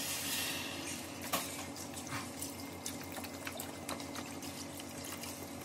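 Chicken broth pouring from a carton into a stainless steel pot of diced potatoes: a steady liquid pour, strongest in the first second, with a few short splashes.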